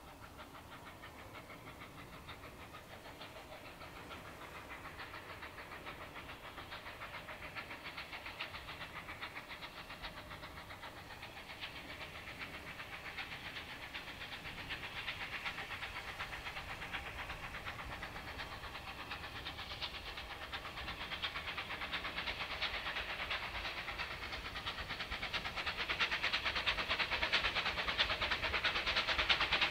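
Steam locomotive approaching under steam, a rapid, even exhaust beat growing steadily louder as it nears.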